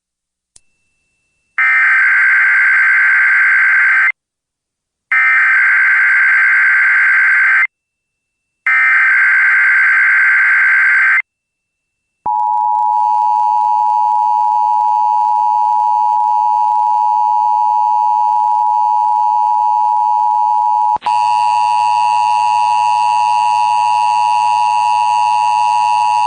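Emergency Alert System activation: three bursts of SAME header data, each a buzzy digital screech of about two and a half seconds with a short gap between them, then the long, steady, loud EAS attention tone, which changes abruptly about 21 seconds in.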